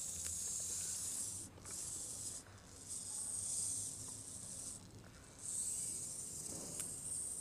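Tiny electric motor and gearbox of a homemade 1:64-scale RC crawler whirring with a high hiss as it crawls over a stone, running in spells broken by three short pauses.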